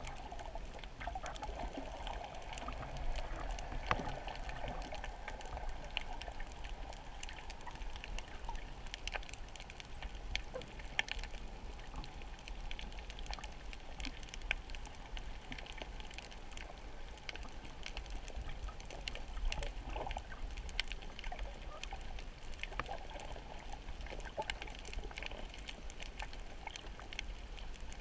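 Muffled underwater sound heard through the camera: a steady low water rumble with a constant scatter of small clicks and crackles.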